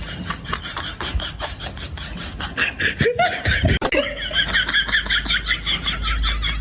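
High-pitched laughter in quick repeated pulses, strongest in the second half.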